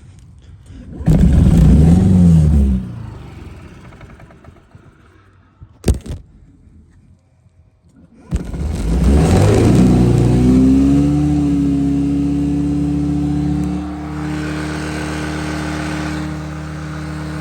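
2009 Honda Metropolitan's small four-stroke scooter engine catches briefly about a second in and dies, a sharp knock comes near six seconds, then it starts again and revs up to a steady high speed with no throttle, its air intake choked with a paper towel after months of sitting. The revs ease slightly about fourteen seconds in.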